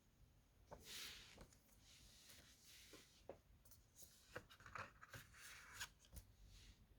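Faint rustling and short clicks as a CD and its packaging are handled, with the busiest stretch about two-thirds of the way through.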